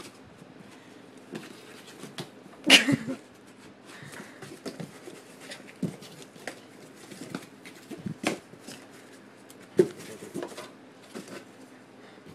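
Scattered scrapes and knocks as a cat shifts about inside a cardboard box, with a sharp, louder knock nearly three seconds in and two more around eight and ten seconds.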